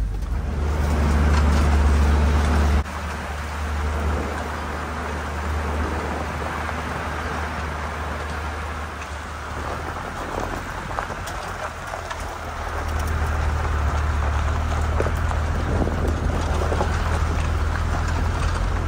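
An off-road 4x4 driving along a gravel forest track: deep engine and drivetrain rumble under a steady crunch and patter of tyres on loose gravel. The level drops suddenly about three seconds in.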